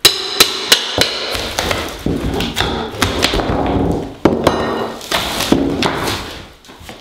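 A hammer striking a flat pry bar in irregular blows, driving it under particle-board floor underlayment and prying the board up.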